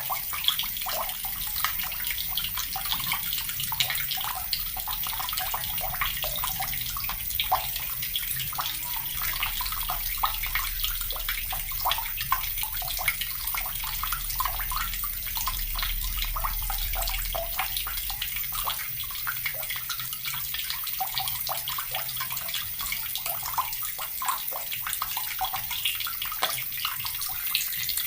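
Water tap running steadily, its stream splashing with many small, close-set spatters. A faint low rumble underneath fades out about two-thirds of the way through.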